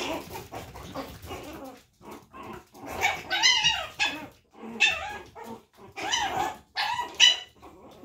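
Chihuahua puppy barking: four bouts of high-pitched yapping in the second half, after a quieter start. It is the sassy, jealous barking of a puppy at its littermates.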